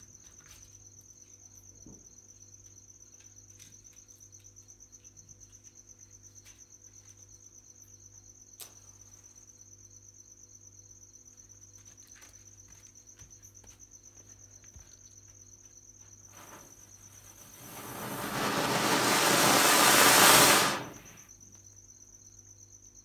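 Crickets chirping steadily in the background. Late on, a lit anar (flower-pot firecracker) starts spraying sparks with a rushing hiss that swells for about four seconds, then stops abruptly.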